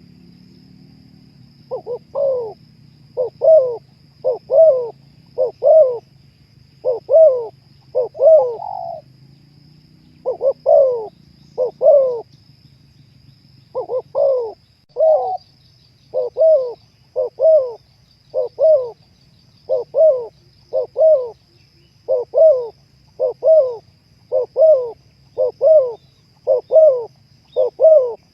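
Spotted dove cooing: a long run of short, low coos at about one per second, broken by a couple of brief pauses.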